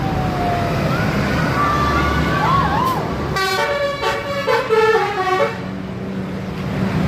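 Indonesian bus's 'telolet' multi-tone horn playing a short stepping tune for about two seconds, starting about halfway in, over the steady running of the bus engine.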